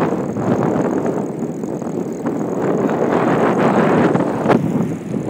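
Steady rushing noise of riding a bicycle along a paved road, with wind on the microphone and the bike's rattle and tyre noise, broken by scattered short clicks.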